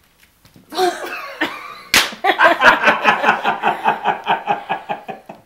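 A sharp slap about two seconds in, then a person laughing hard in quick, even bursts, about five a second.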